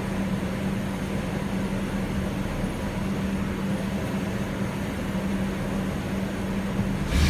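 A steady mechanical hum with a constant tone. Near the end, a louder, rougher mechanical sound with a low pulsing comes in.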